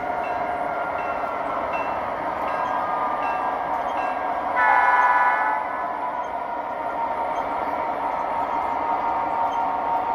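Sound system of an MTH Premier O-gauge E8 diesel locomotive: a steady idling diesel, with a bell ringing at an even pace for the first few seconds. One horn blast of about a second comes about four and a half seconds in.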